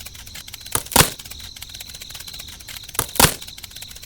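Two pairs of sharp cracks or knocks, one pair about a second in and another about three seconds in, over a steady fast ticking and a thin high whine.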